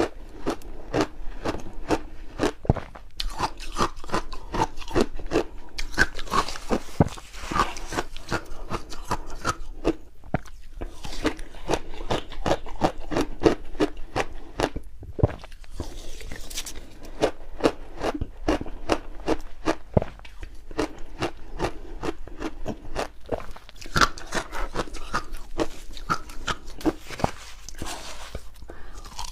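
Refrozen shaved ice being bitten and chewed: a dense run of sharp crunches and crackles, with brief lulls between mouthfuls.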